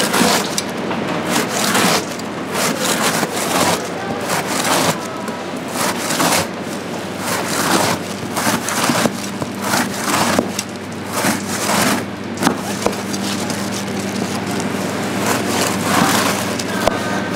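Irregular scraping, crunching and knocking of tools on a batch of oranda, the sticky puffed-grain snack, over a steady low hum.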